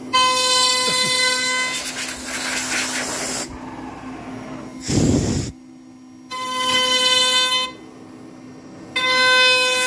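CNC router spindle with an 8mm two-flute end mill cutting a pocket in pine: a whining cutting tone that comes and goes every second or two as the cutter moves in and out of the wood, with a hissy stretch in between. A brief low rumble about five seconds in.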